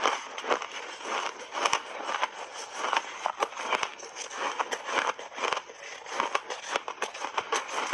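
Crunchy refrozen shaved ice being chewed in big bites, a dense, irregular crackling crunch, along with a metal spoon scooping the ice from the bowl.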